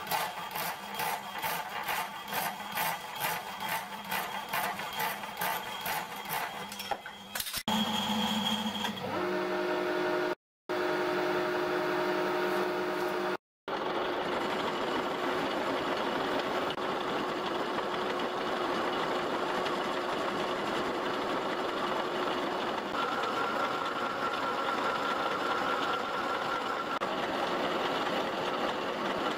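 Power hacksaw cutting through a mild-steel bar with even, rhythmic strokes. After a cut, a metal lathe runs steadily while turning the steel axle bar down to diameter, with a thin whine from the cut for a few seconds near the end.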